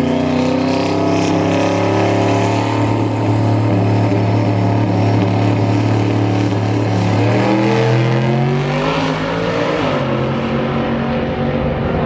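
Drag race car engine held at steady high revs at the starting line. About eight seconds in the engine note changes and rises in pitch.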